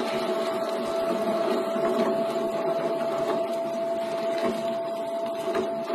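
Electric stainless-steel meat grinder running with a steady motor whine as meat is pushed through it and extruded through the plate, with a few light clicks along the way.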